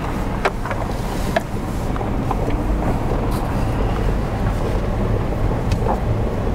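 Car driving slowly on a dirt road, heard from inside the cabin: a steady low rumble of engine and tyres, with a few short sharp clicks scattered through it.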